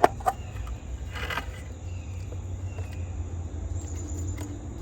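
Sharp plastic click as an outdoor GFCI outlet is handled, a smaller click just after, then a brief rustle and a few faint ticks, over a steady low hum.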